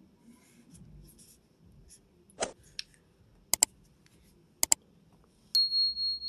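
Handling of a 1911 pistol and its grip panel: light rustling, then a few sharp clicks and two quick double clicks as the panel is fitted to the frame. Near the end a click is followed by a steady high-pitched tone.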